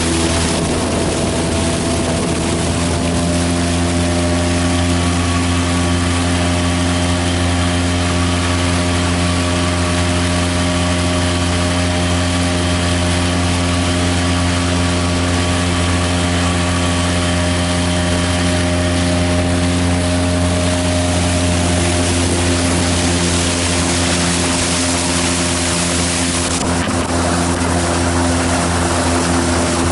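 Small 5 HP outboard motor on a kayak running steadily at constant speed, its pitch holding level throughout, with the hiss of water and wind above it.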